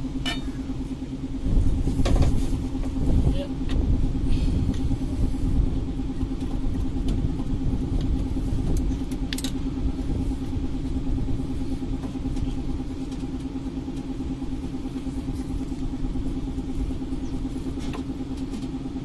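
A steady mechanical hum with a low rumble, and a few sharp metallic clicks and knocks as the truck's air compressor is rocked and pressed to seat it in its housing, louder for a few seconds near the start.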